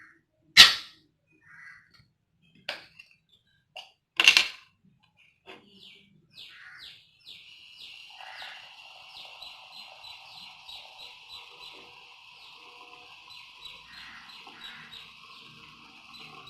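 Two loud, sharp snaps about four seconds apart, then birds chirping steadily, in quick repeated notes.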